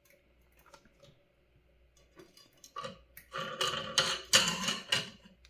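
Small metal tools clinking and clattering against a hard work surface, a quick run of clicks and rattles that starts about three seconds in and lasts about two seconds.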